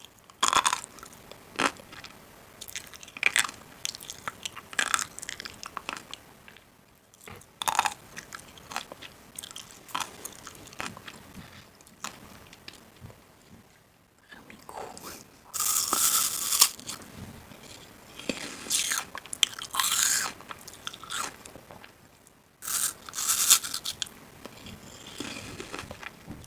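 Crisp food being bitten and chewed: irregular crunches, with a few louder, longer crunchy stretches around the middle and near the end.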